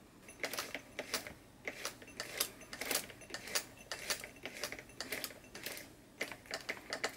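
Singer 320K sewing machine being turned over slowly, its needle bar and reassembled needle clamp moving up and down. The mechanism gives light, irregular clicks about twice a second, coming quicker near the end.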